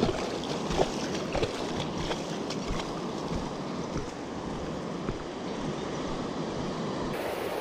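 Shallow surf washing over the beach, a steady rush of water with wind on the microphone and a few faint ticks.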